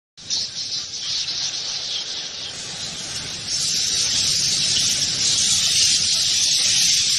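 A swarm of bats flying by, heard as a dense, high-pitched hissing chatter. It starts suddenly just after the beginning and grows louder about three and a half seconds in.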